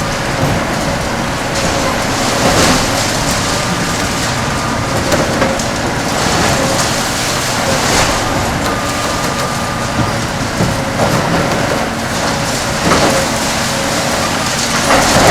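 Kobelco SK 500LC-10 demolition excavator working under load, its six-cylinder Hino diesel engine and hydraulics running steadily while the concrete shear crushes concrete. Sharp cracks and crashes of breaking concrete come a few times, about every five seconds.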